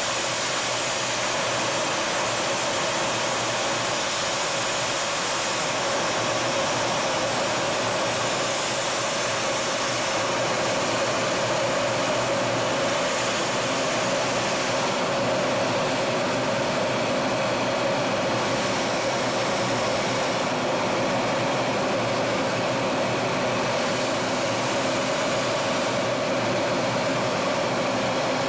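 Steady rush of airflow and jet engine noise inside an IAI Kfir fighter's cockpit in flight, even and unbroken throughout.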